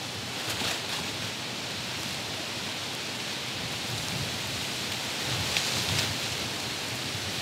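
Steady rain falling on the surrounding leaves, an even hiss that swells slightly about a second in and again near six seconds.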